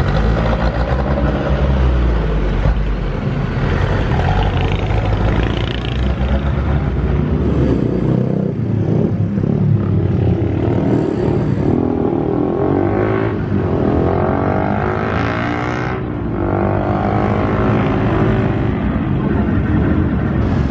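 Diesel locomotive engine idling at a standstill, a steady low rumble, with the voices of a crowd of passengers as they push to board the train.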